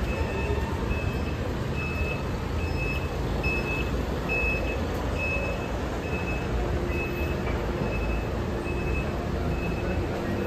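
Electronic warning beeper giving short, high beeps about every 0.7 seconds, over a steady low rumble of street traffic.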